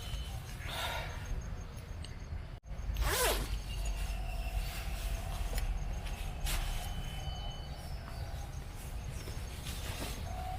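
Woodland ambience: a steady low wind rumble, with short rustles and faint thin high calls. A brief sweeping, falling sound comes just after a sudden break about two and a half seconds in.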